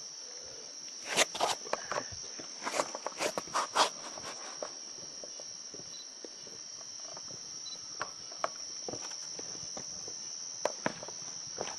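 Insects trilling steadily at a high pitch, with a quick run of sharp clicks or knocks about one to four seconds in and a few more scattered later.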